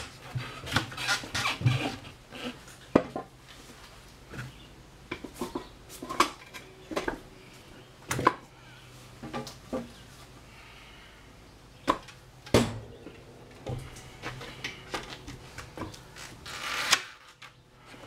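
Scattered sharp wooden knocks and clatter from loose 2x4 boards and a wooden lever pressed against a motorcycle tire to break its bead off the rim, with a longer scraping rub near the end.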